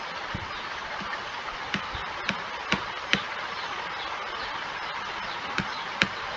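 About half a dozen short, sharp clicks at irregular intervals, like buttons or keys being pressed, over a steady background hiss.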